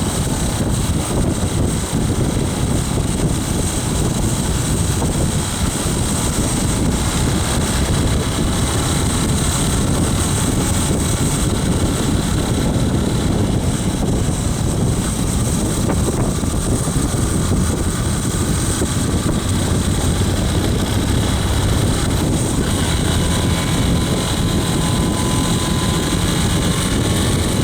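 Hay baler running steadily behind its tractor, with a constant low engine drone and machinery noise.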